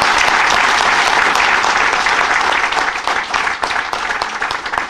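Audience applauding: dense, steady clapping from a roomful of people that begins to thin out near the end.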